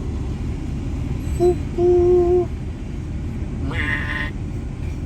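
Long freight train passing a railroad crossing: a steady low rumble. Near the start there is a short steady tone, then a longer one about half a second long.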